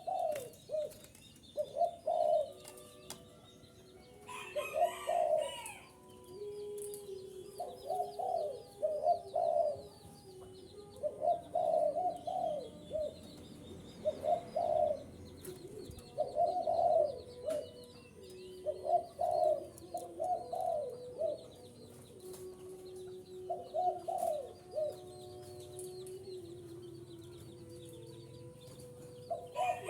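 Spotted dove cooing over and over in short phrases every second or two, with small birds chirping high and faint in the background.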